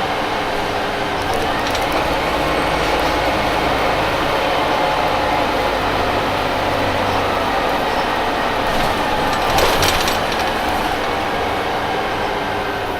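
Orion VII CNG transit bus with a Detroit Diesel Series 50G natural-gas engine running steadily, with a brief burst of rattling clatter about nine to ten seconds in.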